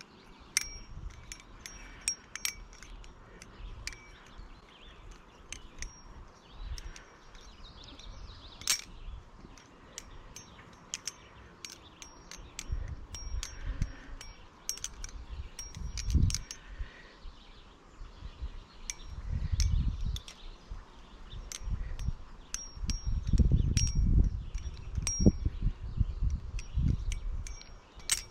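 Hazetac Katasong balisong (butterfly knife) being flipped: irregular metal clicks as the handles swing and strike, many with a short bright ring. Low rumbles come in from about halfway through.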